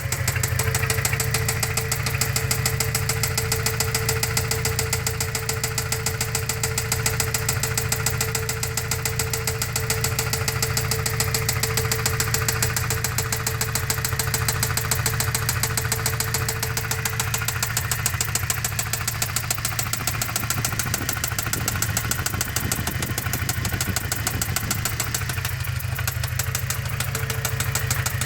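Toyota 22RE 2.4-litre four-cylinder engine idling steadily with a rapid, even knocking. The knock appeared after the valve cover was put back on.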